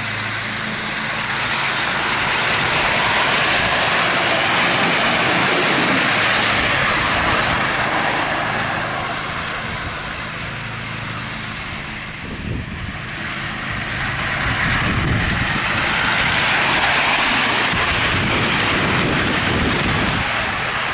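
5-inch gauge live-steam model of an LMS Duchess class locomotive running on a raised track with the driver on a riding car: a steady rush of exhaust and wheel noise that swells, dips about halfway through, then swells again.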